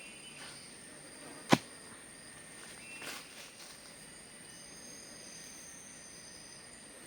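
A single sharp knock, a blow on the wooden shelter frame, about a second and a half in, over a steady high drone of forest insects.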